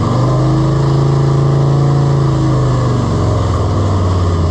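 Harley-Davidson V-twin motorcycle engine running at a fast idle just after starting, fitted with a new Screamin Eagle air intake. The idle speed drops a little about three seconds in.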